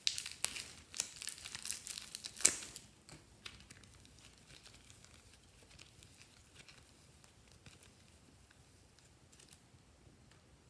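Crinkling and sharp crackling as hands squeeze pink slime out of a thin plastic casing and pull it apart, loudest and densest in the first three seconds. After that come only faint, scattered clicks as the slime is stretched and set down.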